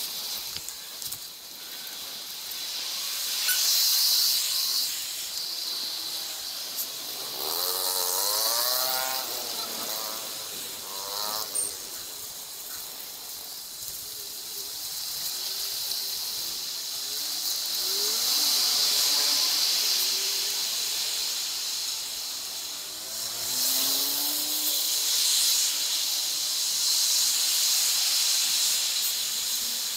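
Street sound and wind on a handlebar action camera's microphone during a bike ride, played back at triple speed: a steady high hiss that swells and fades. Pitched-up warbling sounds come through about 8 to 12 seconds in, and more faintly around 18 and 24 seconds.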